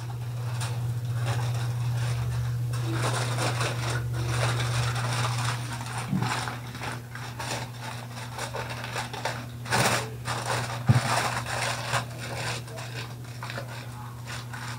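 Kitchen knife scraped back and forth across a whetstone in quick repeated strokes, over a steady low hum. About halfway through, the scraping thins out to a few knocks and handling sounds.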